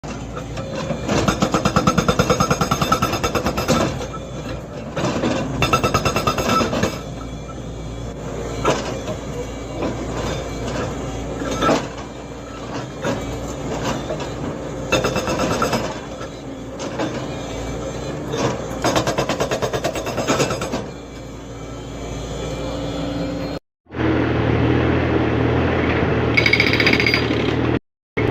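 Hydraulic breaker hammer on an excavator pounding in bursts of a few seconds, each a fast, even stream of blows, with the machine's diesel engine running between them. Near the end, after a cut, a steady engine hum.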